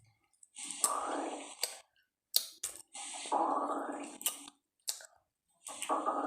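Stomach growling: three growling bursts of about a second each, with sharp clicks between them.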